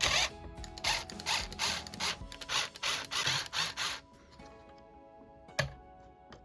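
Screws being backed out of the speaker's power board with a screwdriver: a quick series of short scraping bursts, about three a second, for about four seconds, then a single click. Soft background music runs underneath.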